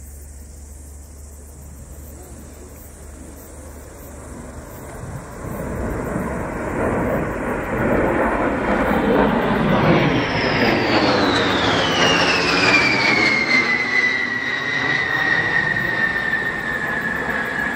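B-52 bomber's jet engines flying over, growing louder as it approaches. A high whine drops steeply in pitch as it passes overhead, about ten to twelve seconds in, then holds lower as the jet noise carries on and slowly fades.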